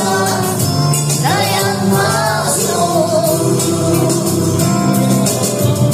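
A singer holding long notes and sliding between them over backing music with a steady bass line.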